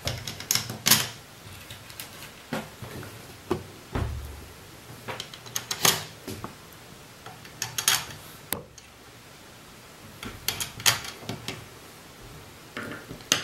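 Scattered plastic clicks and knocks as a PLC's back cover is pressed into place and the unit is handled on a wooden desk, with a duller thump about four seconds in.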